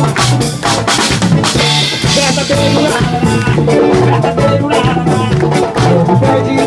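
Live band playing dance music, a drum kit and percussion keeping a steady beat under the pitched instruments.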